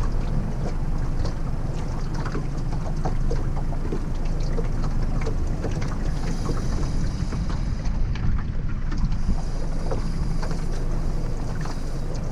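Wind buffeting the microphone in a steady low rumble on an open boat at sea, with scattered small clicks and knocks of handling.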